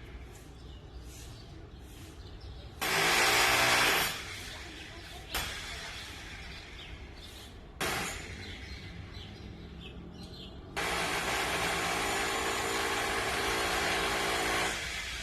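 Electric demolition hammer (martelete) hammering in bursts: a loud burst of about a second, two short knocks, then a steady run of about four seconds near the end.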